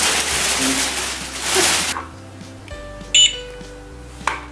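A plastic bag rustling and crinkling for about two seconds, then a single short electronic beep from a toy cash register scanner, with a soft knock near the end. Background music plays underneath.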